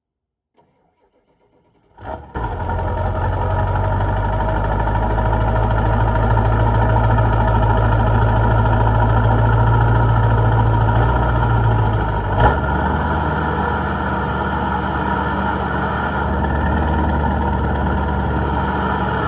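Ford 7.3 Power Stroke V8 turbo-diesel, fitted with a 6.0 intercooler, starting about two seconds in and then running steadily and loudly. About twelve seconds in there is a sharp click and the engine note shifts lower.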